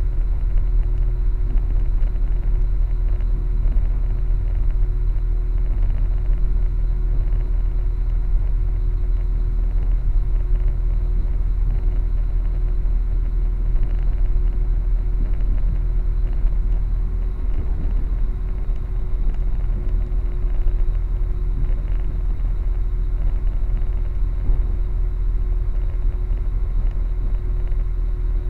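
Passenger train running, heard from inside the carriage: a steady low rumble with a constant hum over it.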